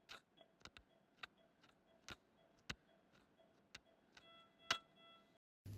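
Near silence, broken by faint, sharp clicks at irregular intervals, about two a second. About four seconds in, a soft steady tone with several pitches sounds for about a second, and then the sound cuts off abruptly.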